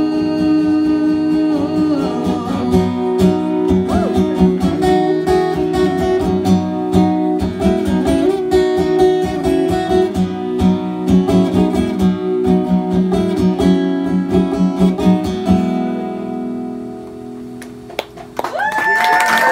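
Solo acoustic guitar strumming the closing bars of a song, with a steady rhythm that stops about three-quarters of the way through. The last chord rings and fades. Just before the end, the audience starts cheering and whooping.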